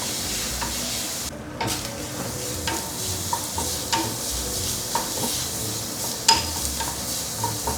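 Minced chicken with fermented bean paste, black beans and chili sizzling in hot oil as it is stir-fried, the spatula scraping and clicking against the pan every second or so. The sizzle drops out briefly just over a second in.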